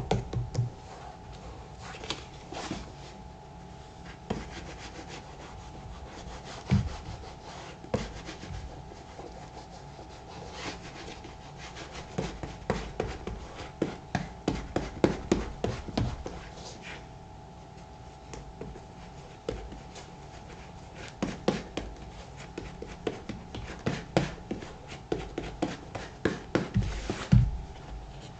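Shoe cream being rubbed into the black leather of a Thorogood moc toe boot, a soft rubbing with many irregular small taps and clicks that come in busier stretches.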